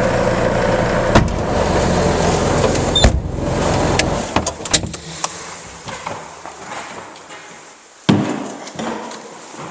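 A 2001 Bobcat 873G skid steer's 73 hp turbo diesel runs steadily, then winds down and stops about four to five seconds in. Scattered clicks and knocks follow, the loudest a sharp knock about eight seconds in.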